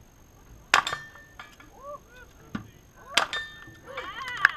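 Two gunshots from a shouldered long gun, about two and a half seconds apart, each followed at once by the short metallic ring of a hit steel target.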